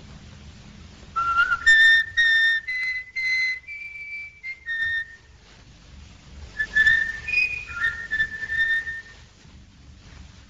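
A person whistling a short tune in two phrases, with a pause of about a second and a half between them, over a steady low background hum.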